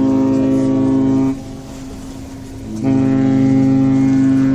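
Cruise liner's horn sounding long blasts: a loud, steady, deep note with overtones. One blast ends about a second in, and after a short gap a second long blast begins and carries on.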